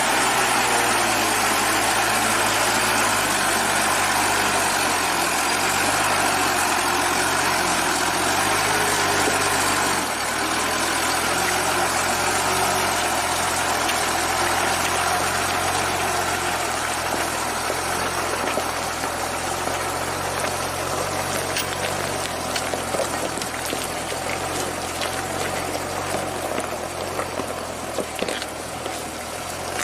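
Soviet ZIL truck's six-cylinder side-valve petrol engine running steadily at low revs without roaring. The engine note shifts about ten seconds in, and light rattles and clicks come through in the last third.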